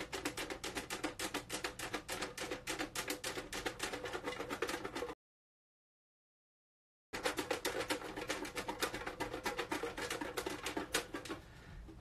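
A small box shaken hard, its draw lots rattling inside in a fast, steady clatter. The sound cuts out completely for about two seconds midway and stops a little before the end.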